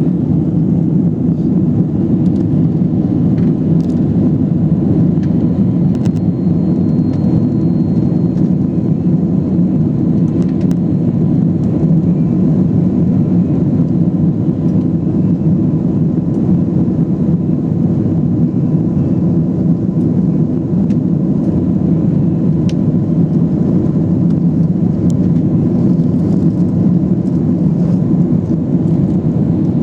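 Airplane taking off: steady, unchanging low engine and airflow noise, with a faint steady hum on top.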